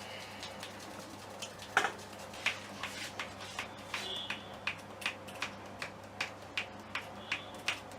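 Sharp clicks: one loud crack about two seconds in, then a steady run of lighter clicks, between two and three a second.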